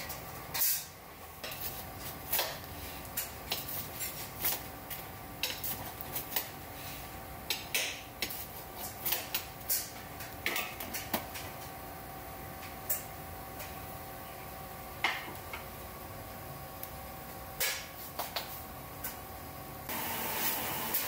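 Restaurant kitchen clatter: plates and utensils clinking and knocking in short, irregular clicks over a steady hum of kitchen equipment. Near the end the background grows louder.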